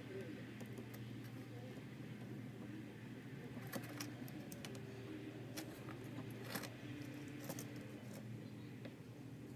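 Light metallic clicks and taps from handling a battery connector, wire and soldering iron on a workbench, scattered irregularly over a steady low hum.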